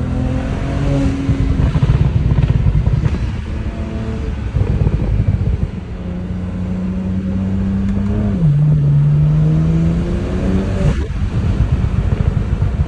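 BMW engine running while the cooling system is bled of air, a loud rumble with a steady note that drops a little about two-thirds through and rises again near the end.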